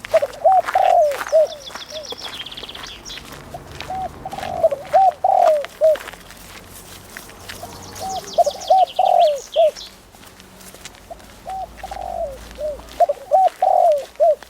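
Birds calling: phrases of short, quick notes recurring about every four seconds, each ending on a longer, louder note, with a small bird's high, fast trill twice.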